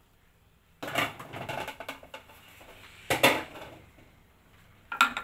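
Kitchenware being handled and set down on a counter: a clatter about a second in, a sharper knock about three seconds in, and a short click near the end.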